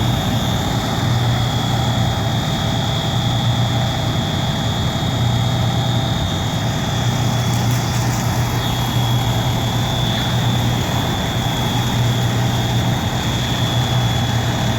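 Fire trucks' diesel engines idling steadily, with a steady high-pitched tone running over them.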